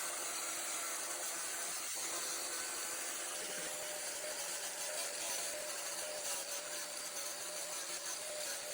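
Handheld power tool running steadily while grinding fiberglass around an old through-hull transducer hole, with a steady whine over a hiss.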